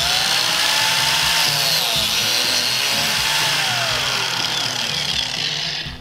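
Ryobi biscuit joiner's motor running at full speed while its blade plunge-cuts a #20 biscuit slot into black walnut, the pitch sagging twice under load before the motor stops near the end.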